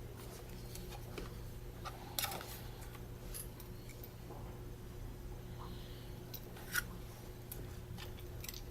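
Small scattered clicks and light scrapes of tools and small parts being handled during Canon EOS 60D camera disassembly, with a sharper click about two seconds in and another near the end, over a steady low electrical hum.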